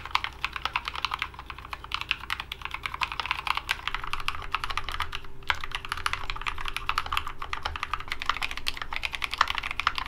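Fast, steady typing on a GMMK Pro, a gasket-mounted 75% keyboard in a CNC aluminum case, fitted with Novelkeys Cream linear switches lubed with Krytox 205g0: a dense run of keystroke clacks. The plate under the switches changes partway through, with brass about halfway and polycarbonate near the end.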